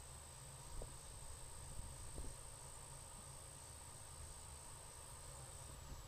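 Insects singing, one steady high-pitched trill, faint over a low rumble, with two soft clicks about one and two seconds in.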